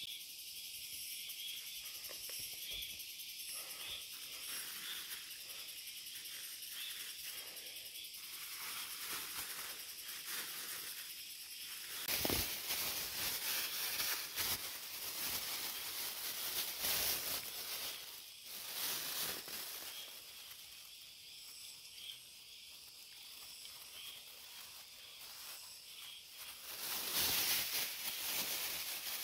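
Insects chirring steadily in a high-pitched chorus throughout. From about twelve seconds in, water poured from a plastic bag splashes and trickles into a stainless steel cup for several seconds. A louder burst of rustling comes near the end.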